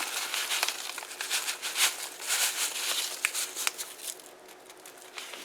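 Stovetop stuffing mix crackling and rustling as it is spread over chicken breasts in a crock pot, with a few sharper clicks. It thins out about four seconds in.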